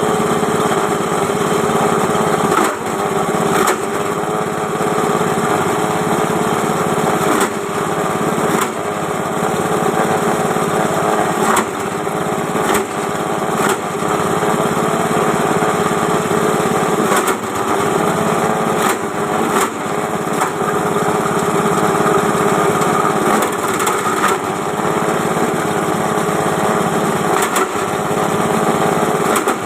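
Multi-purpose chopper machine (JG-135) running steadily on a small engine, with brief knocks and dips in its note every second or two.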